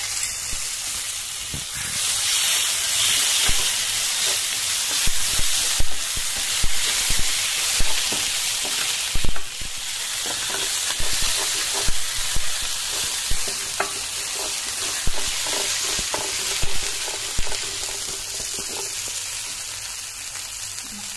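Oil sizzling in a grill pan as chopped cashews, ginger, garlic and red chili paste fry, growing louder about two seconds in. A wooden spatula scrapes and knocks against the pan as the mix is stirred.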